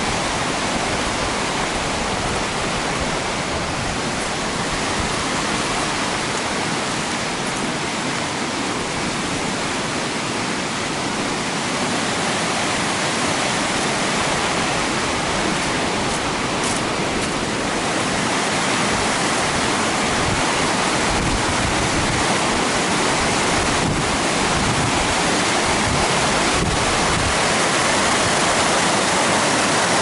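Steady rush of flowing water, a dense even hiss spread across low and high pitches alike, growing slightly louder near the end.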